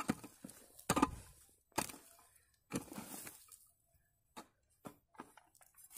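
A pick-mattock chopping into stony earth: four blows about a second apart, each followed by a brief rattle of loosened soil, then a few light ticks near the end.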